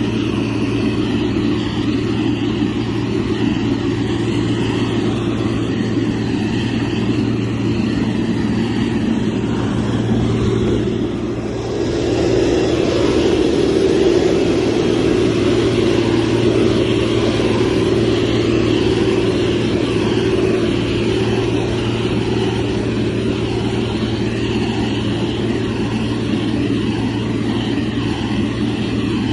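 Heavy construction machine's diesel engine running steadily under work, with a continuous low drone. It dips briefly about eleven seconds in, then comes back slightly louder.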